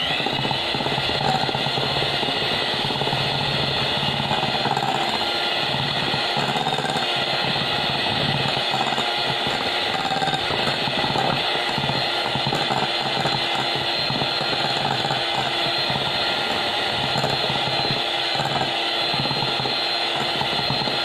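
Electric hand mixer running steadily on low speed, its twin beaters whisking a creamed butter-and-egg-yolk cookie batter in a glass bowl.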